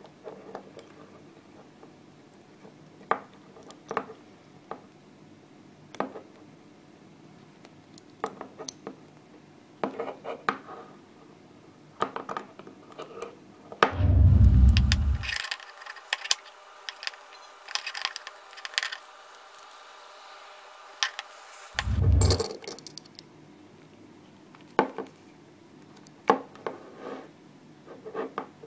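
Cast Helix puzzle being worked by hand: a steel ring clinking and scraping against the cast-metal puzzle body, in scattered sharp clicks. A louder, low rumble of handling noise comes about halfway through, and a shorter one about eight seconds later.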